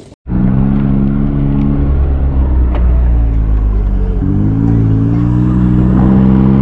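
Car engine running under way, a loud steady drone whose pitch shifts and settles about four seconds in.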